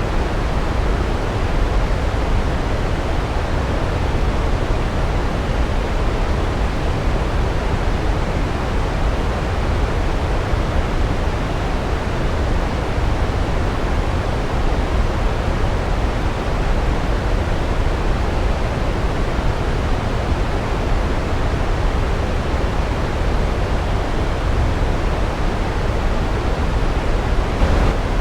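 Big waterfall heard from close: a steady, deep rumble of falling water that does not change.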